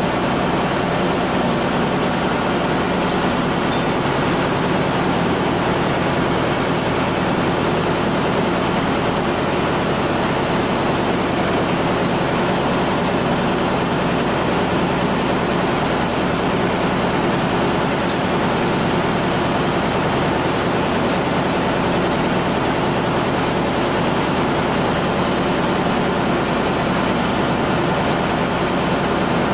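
Steady drone of a ship's engine-room machinery running, an even mechanical noise with a low hum that never changes.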